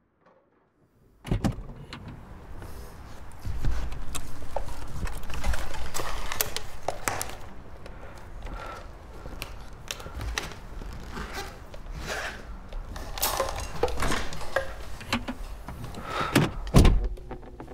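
Clicks, knocks and rattles of electric fans being handled and set up, over a low rumble. It starts suddenly after about a second of near silence, and a heavy thump comes near the end.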